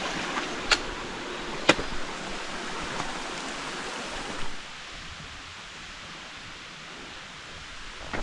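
Rushing of a small mountain stream, with two sharp clicks about a second apart in the first two seconds; the water sound fades down about halfway through.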